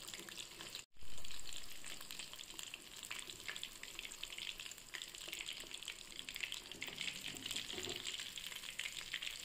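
Masala-coated fish pieces deep-frying in hot oil in an iron kadai: a steady, dense crackling sizzle of many fine pops. The sound drops out for a moment about a second in.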